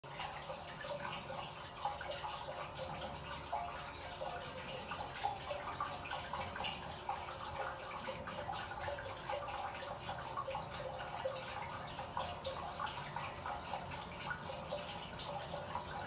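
Water dripping in a steady, irregular patter of many small drops a second.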